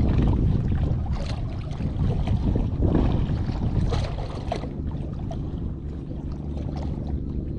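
Low, steady rumble of a boat engine, easing a little about halfway, with wind on the microphone.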